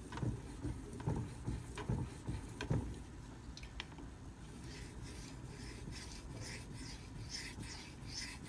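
Knife blade being stroked across a Shapton Pro 5000 grit whetstone to polish a convexed bevel, a rhythmic scraping of about two strokes a second that sets in about halfway through. Before that come a few light knocks, about one a second.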